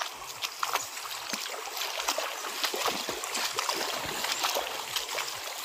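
Irregular crunching footsteps on loose river pebbles, with small splashes, over the steady rush of a shallow river.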